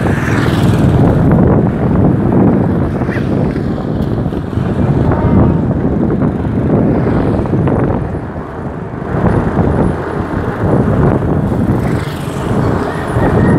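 Steady engine and road noise heard from inside a moving vehicle, with a loud rushing noise that swells and fades.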